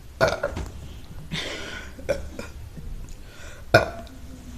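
A woman burping: short, sharp burps, one just after the start and the loudest near the end, with a breathy rush in between.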